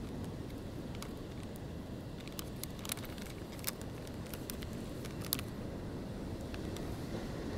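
Ocean surf breaking below a cliff, heard with wind on the microphone as a steady low rumble, with scattered small clicks and crackles, a few sharper ones near the middle.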